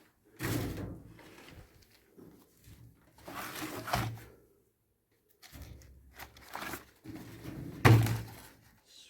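Irregular bumps, thuds and rustles of objects being handled and moved, in several separate bursts with the loudest thump near the end.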